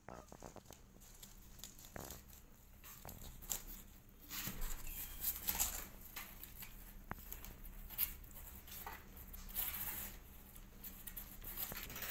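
Kittens scrabbling and rustling about, with irregular scratchy patters and light clicks that grow busier a few seconds in, over a faint steady low hum.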